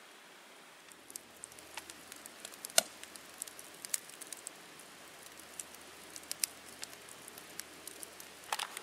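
Wood campfire crackling: split logs burning in a fire ring give off irregular sharp pops and snaps, one of them loud about three seconds in, starting about a second in after a soft steady hiss.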